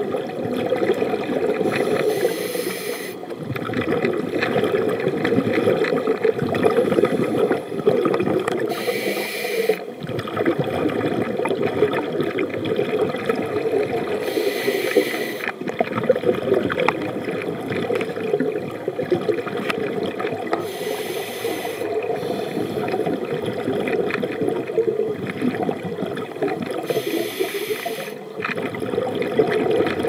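Scuba regulator breathing heard underwater: a hissing, bubbling breath about every six seconds over a steady underwater wash of noise.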